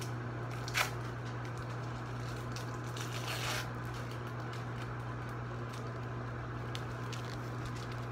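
Microwave oven running with a steady low hum while eggs cook. A sharp click comes about a second in, and plastic crinkles briefly about three seconds in as cheese slices are handled.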